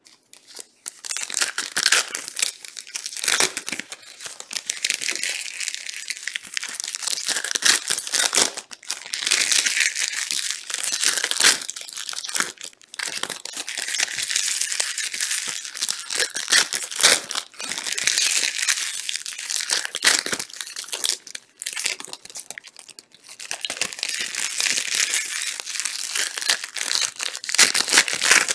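Trading card pack wrappers being torn open and handled, crinkling in repeated bursts with short pauses between them.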